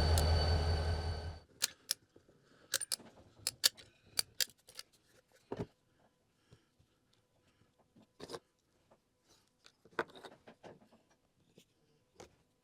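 Diesel engine sound from an HO-scale model locomotive running, which stops abruptly a little over a second in. After that come scattered light clicks and clinks of small hard objects being handled.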